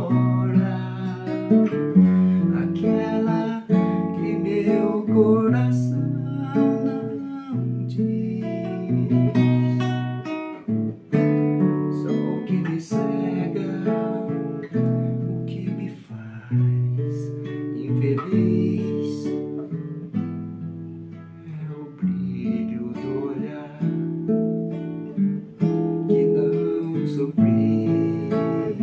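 A man singing a Brazilian song in Portuguese to his own acoustic guitar, plucking chords and bass notes.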